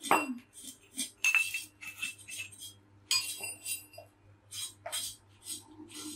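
Kitchen knives cutting on a wooden chopping board: a string of irregular sharp taps and light metallic clinks.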